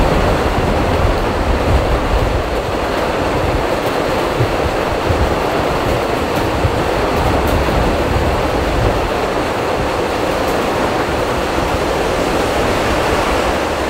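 Heavy rain pouring down in a steady roar, with a low rumble underneath for the first several seconds that then fades.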